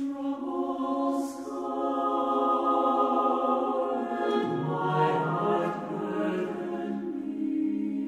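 Slow choral background music, voices singing long held notes; lower notes come in about halfway through.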